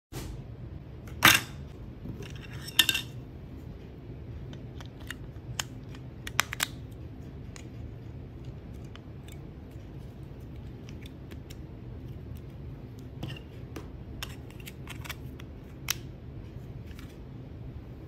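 Unpacking a plastic TV remote from a padded paper mailer. Two loud, sharp rustling noises come about one and three seconds in as the package is opened, then scattered light clicks and taps of handling, over a steady low hum.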